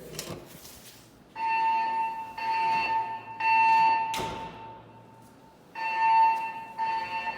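Siemens MXL-V fire alarm speakers sounding the temporal-three evacuation tone: three beeps at about 1 kHz, a pause of about a second and a half, then three more beeps.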